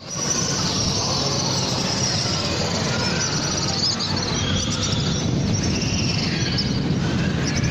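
Many small birds chirping rapidly and high-pitched over a steady low rumble.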